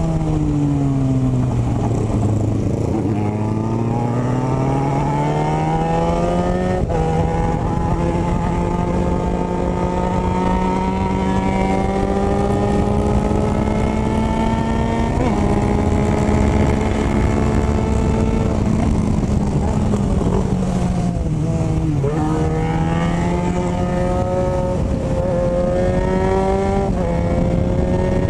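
Motorcycle engine heard while riding. The revs fall over the first few seconds, then climb, then hold fairly steady with a small jump about halfway. They dip briefly about two-thirds through and then rise again in steps near the end.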